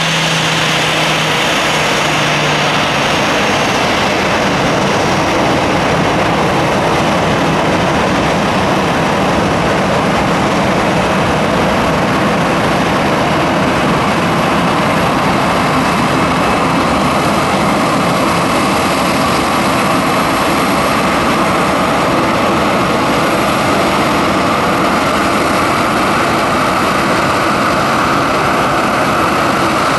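Boeing 737-800's CFM56-7B turbofan jet engines running, a loud, steady jet noise with a faint whine that rises slightly in pitch over the second half.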